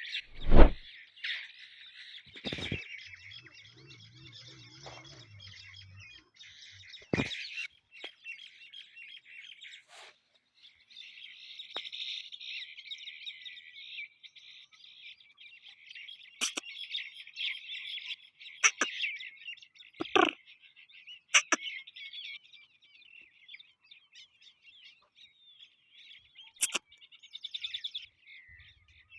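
Birds chirping and twittering almost continuously, with several short, sharp knocks, the loudest about half a second in.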